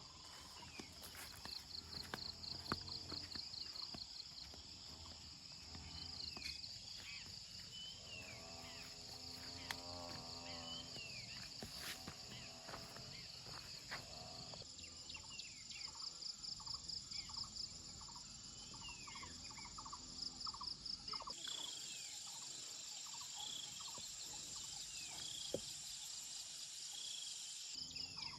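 Farmyard countryside ambience: insects trill steadily with a fast pulse, and small birds give repeated short falling chirps. A chicken calls for a few seconds about eight seconds in.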